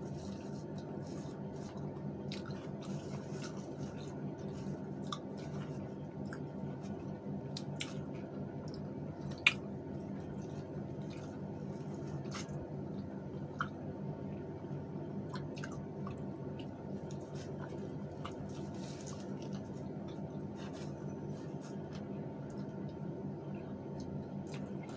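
Close-up eating sounds: chewing and wet mouth smacks as food is eaten by hand, with scattered small clicks over a steady low hum. One sharp click stands out about nine and a half seconds in.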